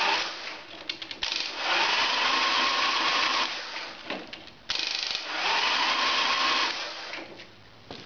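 Harley-Davidson Evo Sportster XLH 1200 starter motor cranking the V-twin with its spark plugs out, in two runs of about two seconds each with a short gap between. The engine turns but the starter seems to lack power, a fault traced to bad battery cable leads.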